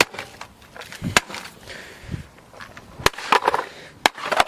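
Plastic toy race car being smashed: several sharp knocks about a second apart, with loose plastic parts rattling and scraping between the blows.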